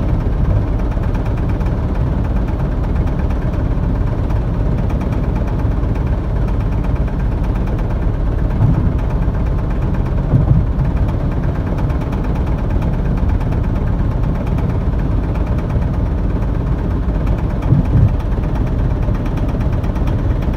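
Honda Civic at highway speed: a steady low rumble with a fast, even rattle running through it and a few louder thumps. This is the rattling/knocking noise that comes only from 65 mph up and has not been cured by a new driveshaft, shocks, rims, tires, balancing or alignment.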